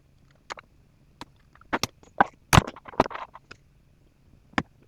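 A metal prying tool clicking and scraping against a steel E-clip on a chainsaw's clutch shaft as the clip is worked out, giving a scatter of short, irregular metal clicks.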